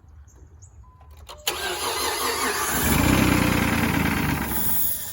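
2012 Dodge Journey engine cranking on the starter, catching and running for a couple of seconds, then cutting out: the car starts and then stops because it has run out of fuel.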